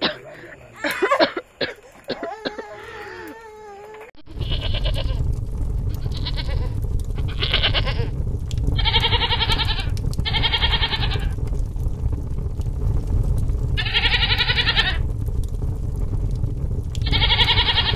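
A baby whimpering and crying softly for the first few seconds. About four seconds in, a steady low rumble comes in suddenly, and a goat bleats repeatedly over it, about eight short wavering bleats.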